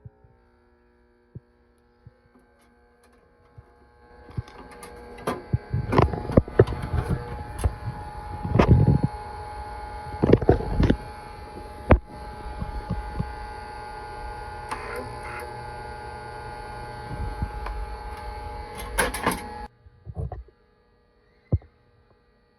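A 100 V MIG130 wire-feed welder humming, then about four seconds in its arc strikes and runs for some fifteen seconds as a steady crackling sizzle with louder pops. The arc cuts off abruptly near the end, leaving a few clicks.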